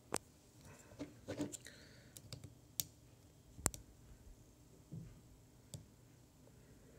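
Irregular small clicks and handling noise of fingers working on a racing drone's board, pressing the video transmitter's push-button to step its power setting. There are about seven clicks, and the sharpest comes about halfway through.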